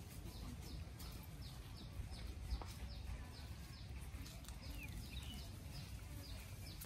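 A bird repeating a short, high, falling chirp about twice a second, over a low steady rumble, with one sharp click about two and a half seconds in.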